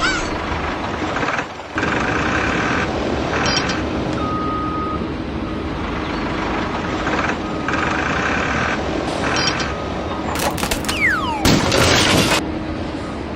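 Steady machinery running noise with short beeps now and then. A falling whistle and a loud burst of noise come near the end.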